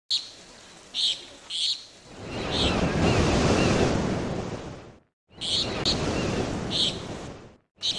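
Ocean surf washing in and drawing back in swells of a couple of seconds, with short high bird chirps over it. It cuts off abruptly twice, about five seconds in and again near the end.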